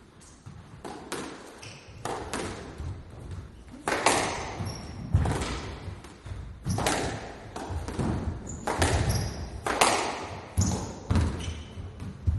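Squash rally: the ball cracks off rackets and the court walls in a run of sharp, echoing hits, roughly one every half second to a second, the hardest ones from about four seconds in. A few short high squeaks sound between the hits.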